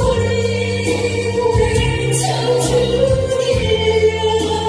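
A woman singing a Korean trot song into a microphone over instrumental accompaniment, holding long notes.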